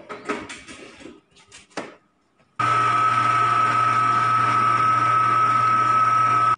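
Electric stand mixer with a glass bowl running steadily, a loud motor hum with a high whine, as it beats butter, sugars, egg, milk and oil into cookie dough. It starts abruptly about two and a half seconds in, after a few scattered knocks and rustles.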